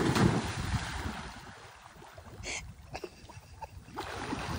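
A person diving headfirst into a swimming pool fully clothed: a sudden splash right at the start, with water churning and settling over the next second or so. Splashing picks up again near the end as he swims.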